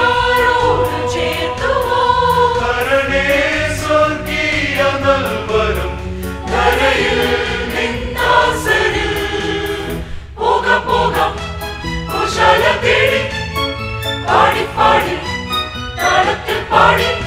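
Large mixed choir singing a Malayalam Christmas carol in full harmony over instrumental accompaniment with a steady bass and a regular light percussion beat. The music drops briefly about ten seconds in, then the choir comes back in shorter, rhythmic phrases.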